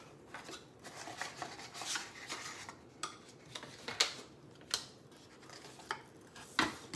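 A cardboard perfume box being unboxed by hand: the inner tray sliding and the cardboard rustling, with several sharp clicks as the bottle is taken out.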